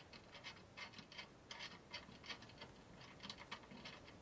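Faint, irregular ticking and scratching of a spring-loaded mounting screw being turned by hand through a CPU cooler bracket into a motherboard.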